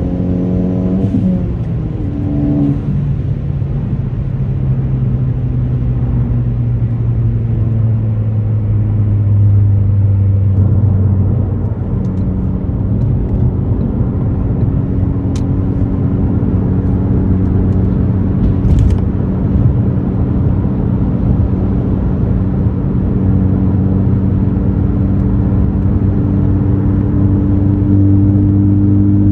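2018 Ford Focus ST's turbocharged 2.0-litre four-cylinder running through an AWE axle-back exhaust, heard from inside the car. Its pitch drops quickly in the first couple of seconds, as on lifting off or shifting up, then it settles into a steady cruising drone that rises slightly near the end.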